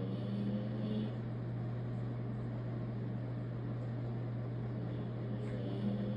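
Sleeping dog snoring, two snores about five seconds apart, over a steady low hum.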